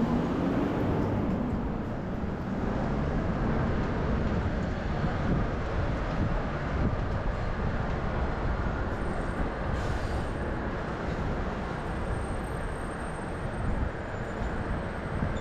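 Steady rumble of city street traffic, with engines running past; a vehicle's engine rises in pitch during the first second or so as it pulls away.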